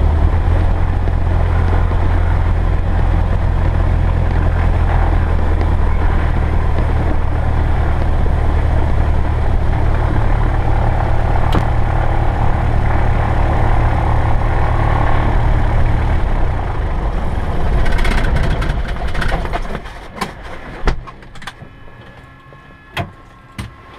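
Cessna 172S's four-cylinder Lycoming engine running steadily at low taxi power, heard from inside the cabin. About sixteen seconds in the engine sound dies away within a few seconds, leaving a much quieter background with a few sharp clicks.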